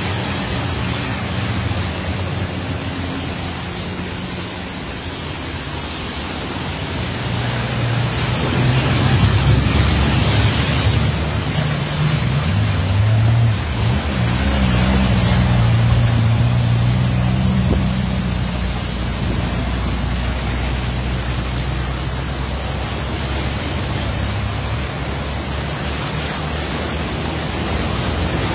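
Floodwater rushing in a street with heavy typhoon rain: a loud, steady hiss. A low rumble swells about a third of the way in and eases off again near two-thirds.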